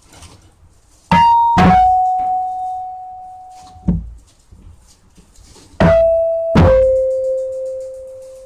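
Electronic keyboard playing a falling two-note ding-dong chime, copied by ear from a bus sound effect. It sounds twice, the second time lower, and each note rings and fades. A low thud of the key press comes with each note, and there is a knock about four seconds in.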